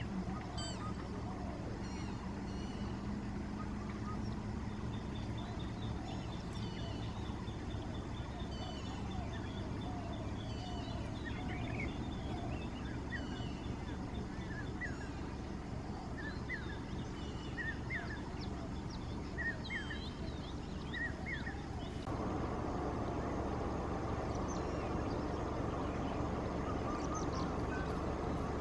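Forest birds chirping and trilling, short scattered notes over a steady low hum. About two-thirds of the way through, a louder rushing noise comes in and stays.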